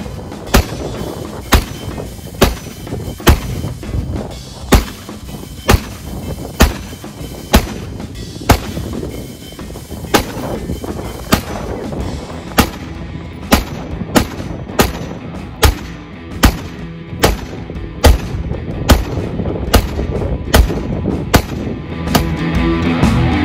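A rifle fired in a long steady string, about one sharp shot a second with a short ring after each, some two dozen shots in all. Background music runs underneath and comes up at the end.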